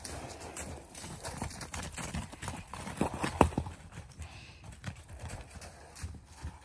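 Hoofbeats of a horse and a pony trotting and cantering over frozen, trampled snowy ground: an irregular run of hoof strikes, with a cluster of the heaviest strikes a little past the middle.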